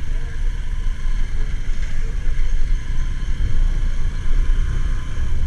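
Wind buffeting the microphone of a moving motorbike over its engine and road noise: a steady low rumble.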